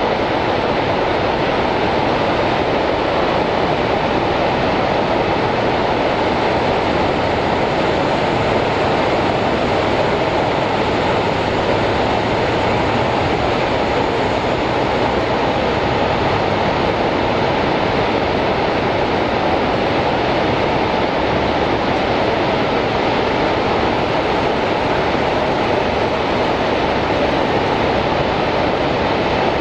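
The American Falls at Niagara: a large waterfall pouring, a loud, steady rush of falling water that holds even throughout.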